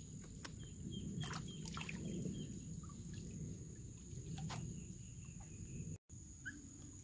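Quiet outdoor sounds by a canal as a bamboo lift net is worked: water splashing and dripping off the net, with a few sharp knocks. A bird gives a quick series of short, high chirps about a second in.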